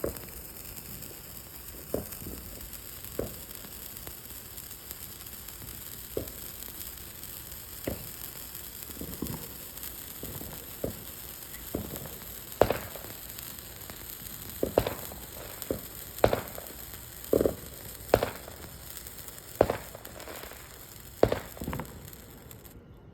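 Sparklers burning: a steady hiss with short sharp pops every second or two, coming more often in the second half. The hiss cuts off suddenly near the end.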